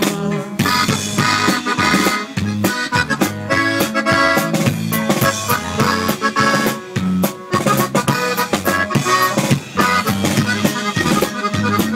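Accordion-led band music in an instrumental passage, with bass and drums keeping a steady beat.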